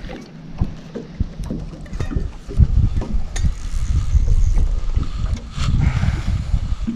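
Wind buffeting the microphone in a boat: a low, uneven rumble that picks up a few seconds in, with a few light knocks.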